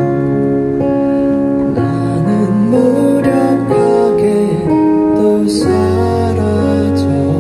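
Live music: a man singing into a microphone over guitar accompaniment.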